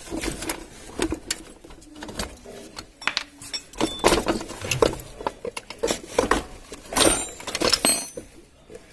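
Metal clanks, knocks and rattles as a motorcycle wheel with its drum brake is worked loose and pulled out, with a few short metallic rings near the end.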